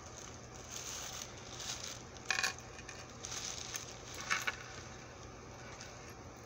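Metal jewelry being handled: two small metallic clinks about two seconds apart, each with a short ring, over soft handling rustle.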